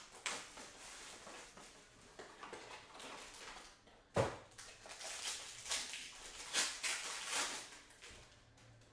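Trading-card box and foil packs being opened by hand: irregular crinkling and rustling of wrappers, with one sharp snap about four seconds in and a run of louder crinkles after it.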